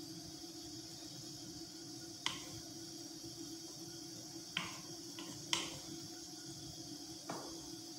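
Steady hiss and low hum with a few sharp clicks spread through it, about five in all.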